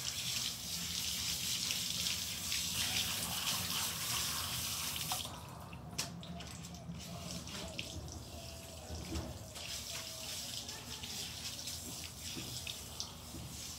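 Water spraying from a garden hose nozzle onto a dog's coat, a steady hiss that cuts off about five seconds in. After that, dripping water with a few small clicks and splashes.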